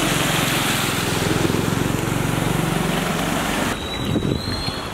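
A motor engine running steadily with a low pulsing hum, under a loud rushing noise. It stops abruptly about four seconds in, leaving quieter background sound with faint voices.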